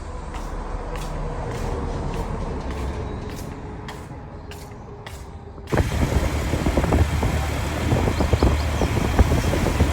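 Motor vehicle and road noise: a steady engine hum with a few clicks, then about six seconds in a sudden cut to louder, rougher rumbling vehicle noise.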